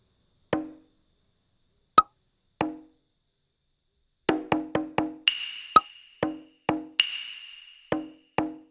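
Cartoon sound effects of hollow wooden knocks, like a wood block, one for each tiptoeing step across a bamboo-tube bridge. They come slowly at first, then in a quick run of four, then slowly again. A couple of sharper clicks and two brief hissy rings are mixed in.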